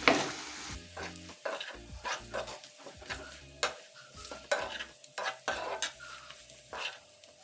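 Chicken in soy sauce being stirred in a frying pan, the utensil scraping and knocking against the pan in irregular strokes over a light sizzle of frying.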